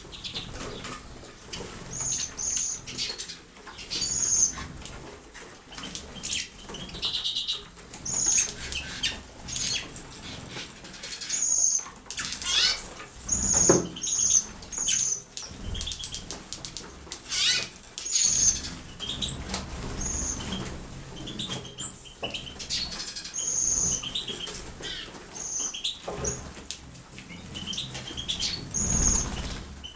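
Small pet birds bathing in water, with wings fluttering and splashing. Short, high chirps come every second or so.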